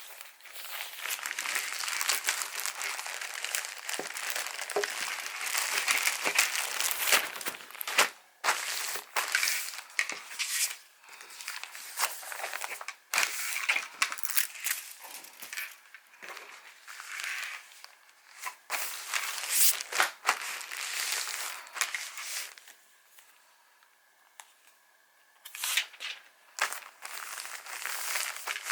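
Packaging being handled while packing orders: irregular crinkling and rustling with sharp crackles, dropping to a lull near the end before starting up again.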